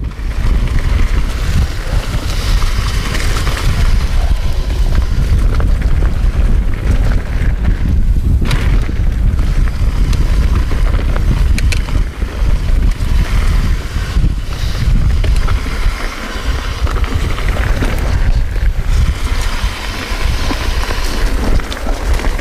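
Mountain bike descending a dirt trail: wind buffeting the chest-mounted camera's microphone in a heavy low rumble, over the hiss of tyres rolling on dirt and leaves, with a few sharp clicks and rattles from the bike.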